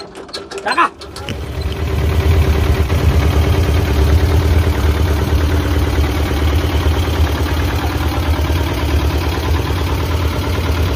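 Hand-cranked single-cylinder inboard boat engine catching about a second in, then running steadily with a rapid low beat.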